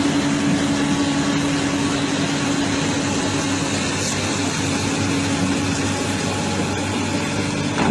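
Heavy machinery engine running steadily, with a constant droning hum.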